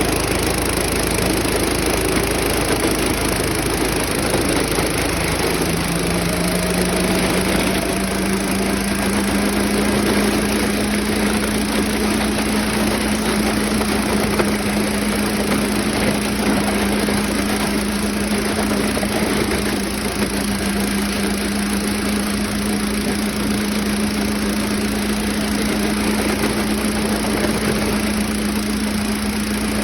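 An engine running steadily; a few seconds in, its pitch rises as it speeds up, then holds steady.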